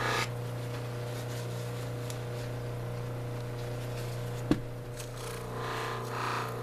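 Steady hum of a lapidary polishing machine spinning a compressed felt wheel charged with cerium oxide, with a labradorite cabochon held against the wheel. One sharp knock about four and a half seconds in.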